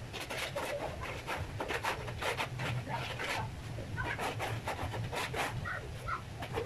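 Rough, quick scraping or brushing strokes on a floor, one after another. Short bird chirps come in now and then, most around the middle.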